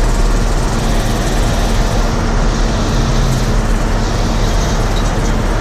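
Farm harvest machinery running steadily: a loud, even engine drone with a constant low hum.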